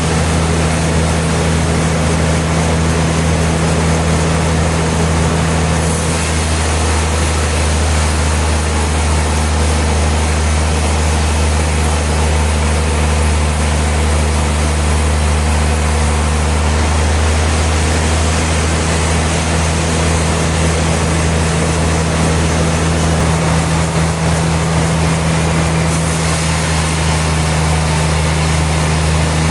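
Sawmill machinery running steadily, with a continuous loud low hum and noise spread across the whole range.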